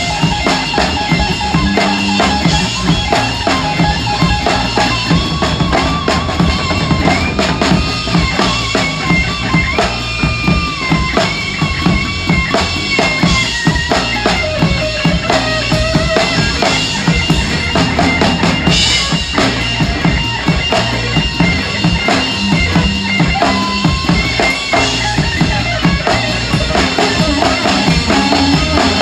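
A live rock trio playing. A drum kit with a 26-inch bass drum and large ride cymbals is heard close up, driving the beat, under an electric guitar line of held notes that slide and bend in pitch.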